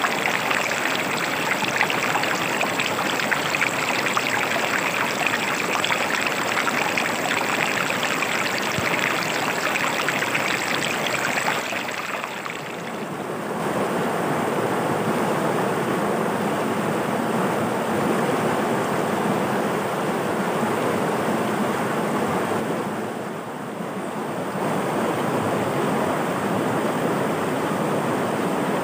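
Rocky river rushing and splashing over stones and small rapids in a steady rush of water. The sound dips briefly and shifts in tone about twelve seconds in and again near twenty-four seconds.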